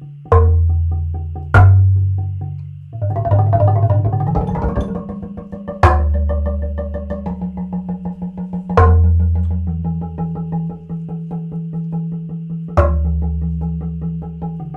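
Improvised percussion on a large xylophone of rough wooden planks: quick repeated wooden notes, with a dense flurry of strokes a few seconds in. Five deep, low strikes ring out over the pattern, each the loudest sound where it falls.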